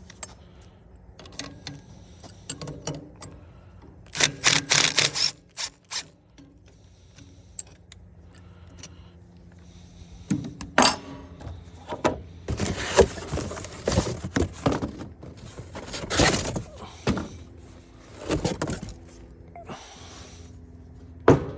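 Irregular knocks, clicks and scraping of hand tools and metal parts during blower motor replacement work, in scattered clusters with a sharp knock near the end.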